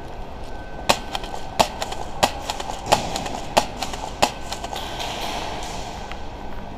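Airsoft gun firing six single shots at an even pace, about one every two-thirds of a second, over a steady background hum.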